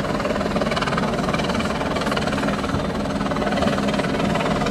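Helicopter flying overhead, its rotor and engine giving a steady drone.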